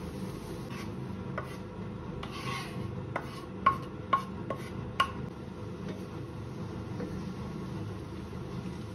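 Wooden spatula scraping and stirring food in a pan during stir-frying, with a quick run of sharp knocks against the pan between about three and five seconds in. The lit gas burners give a steady low rush underneath.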